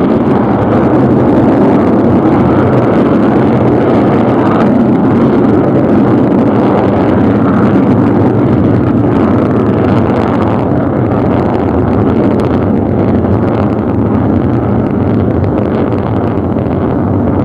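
Solid-fuel rocket motor of a Pukguksong submarine-launched ballistic missile burning in climb after breaking the sea surface: a loud, steady, dense rumble that eases slightly toward the end.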